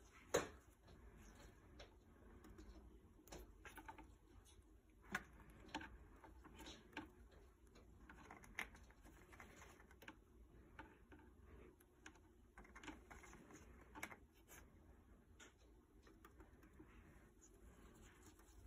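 Faint crinkling, tearing and clicking of paper as a Quaker parrot shreds tissue with its beak, in scattered short bursts with one sharper snap at the very start.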